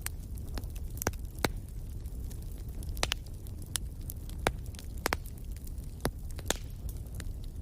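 Wood fire burning: a steady low rumble of the flames with irregular sharp crackles and pops from the burning logs, about a dozen in the span.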